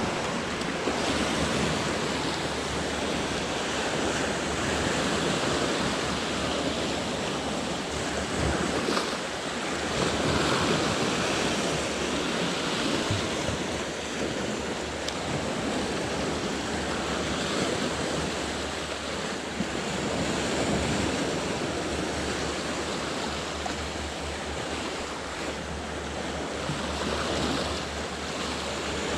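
Sea waves washing against a rocky shore, a steady wash that swells and eases slowly.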